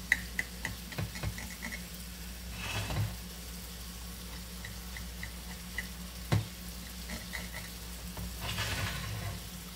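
A knife cutting through a cabbage and carrot omelette on a plate: two short scraping passes, about three seconds in and again near the end, with a sharp click about six seconds in and light ticks throughout over a steady low hum.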